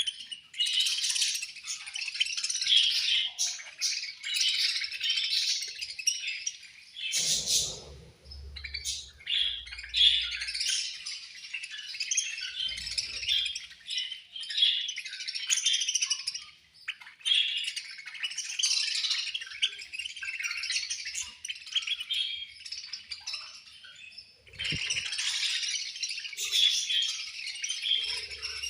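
A flock of budgerigars chattering and chirping continuously, with a few short lulls and some faint low knocks.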